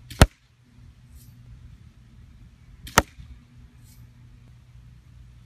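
Daisy Red Ryder spring-air BB gun fired twice, about three seconds apart, each shot a sharp, short report. About a second after each shot comes a fainter, brief high-pitched noise.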